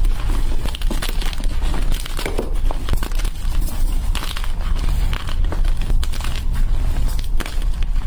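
Blocks of dyed gym chalk crushed and crumbled between bare hands into powder: dense, continuous crunching and crackling, over a steady low rumble.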